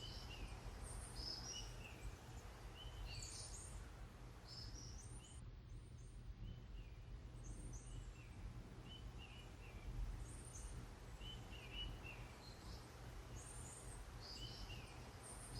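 Small birds chirping faintly in short, high, repeated calls every second or so, over a steady low rumble.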